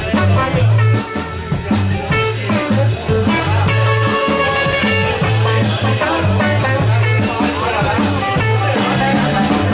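Live band playing an instrumental passage of a blues-rock song: electric guitar over electric bass and drums, with a tenor saxophone.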